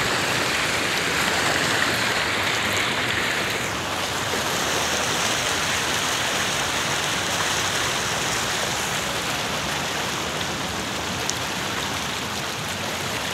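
Fast-flowing floodwater rushing across a flooded road, a steady loud rush of water; the sound shifts a little higher about four seconds in.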